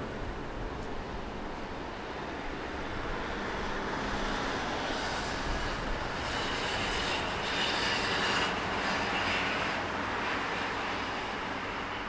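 Road traffic driving past: a camper van and then a car, tyre and engine noise swelling to a peak about eight seconds in and then fading.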